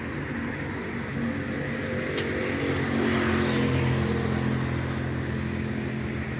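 Motor vehicle engine running steadily on the street, its hum growing louder around the middle as it comes nearer, over a background of traffic noise. A single short click about two seconds in.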